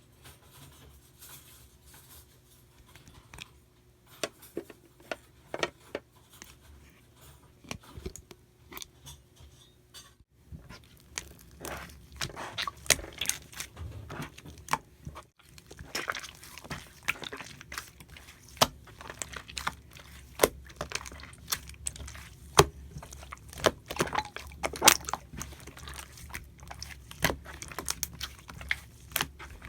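Hands pressing and squishing slime, giving irregular crackling clicks and small pops that become busier and louder about ten seconds in.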